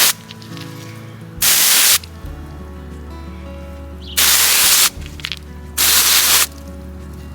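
Short bursts of water spray hissing from a sprayer as rocks are rinsed off: three bursts of about half a second, plus the end of one just at the start. Background music with steady held tones plays underneath.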